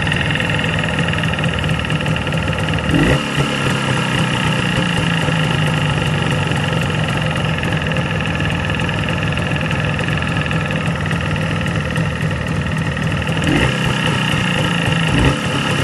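Jawa 638's two-stroke twin-cylinder engine running steadily at idle, carrying the extraneous noise that the owners suspect comes from the cylinder and piston group.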